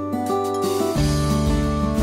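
Acoustic-guitar background music; a deeper bass line joins about halfway through and the music grows fuller.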